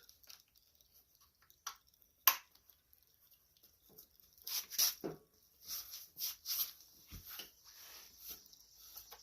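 Scattered clicks and light rattles of the air filter and its cover being handled and fitted back onto a Kohler riding-mower engine, with one sharp click about two seconds in and a cluster of clicks around the middle as the metal clip is worked.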